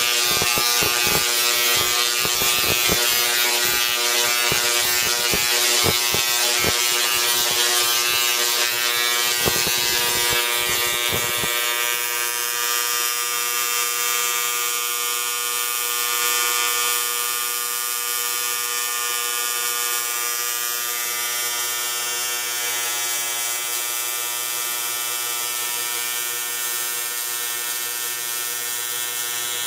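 A DRSSTC (dual-resonant solid-state Tesla coil) running, with a steady buzz and an arc to an overhead ground terminal crackling and popping. The crackling stops about 11 seconds in and the buzz goes on. The coil is running properly after its IGBTs were replaced.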